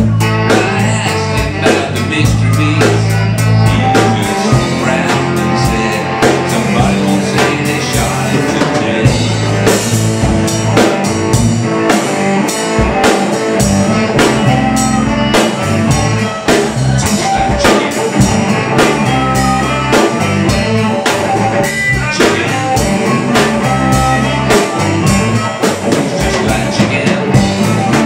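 Live blues band playing an instrumental passage, with electric guitars, saxophone and a drum kit keeping a steady beat.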